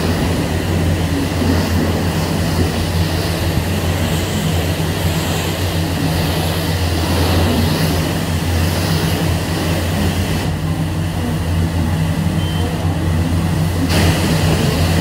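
Self-serve car wash pressure washer running: a steady low pump hum with the hiss of the high-pressure spray on top. The spray hiss cuts out for a few seconds about two-thirds of the way through, then resumes while the hum carries on.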